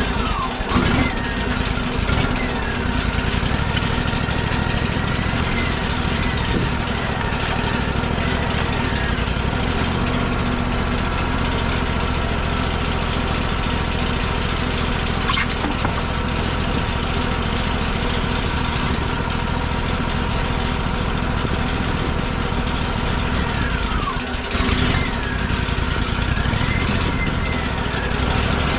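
Wood-Mizer LT40 portable band sawmill running steadily, most likely resawing timber. A high whine slides up and down in pitch near the start and again near the end.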